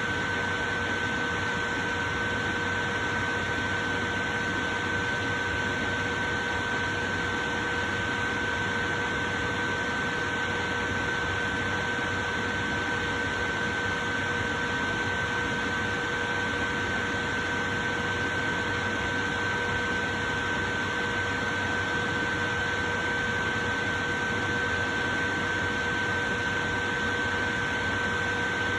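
Portable electric fan running steadily, an even rush of air with a constant whine from the motor.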